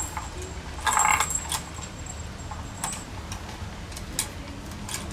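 Toys on a kittens' scratching post jangling and clattering as they are batted: a hanging metal bead chain and toy rattling in short bursts, the loudest about a second in, with a few single clicks after.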